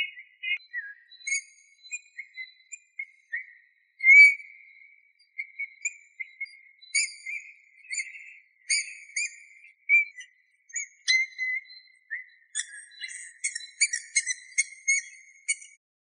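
Eurasian bullfinch singing: a long run of short whistled notes at a fairly even pitch, irregularly spaced, some with thin, higher squeaky notes mixed in. The loudest note comes about four seconds in.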